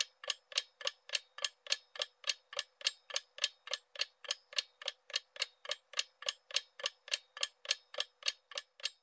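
Clock-style ticking sound effect of a quiz countdown timer, steady sharp ticks at about three and a half a second, stopping at the end.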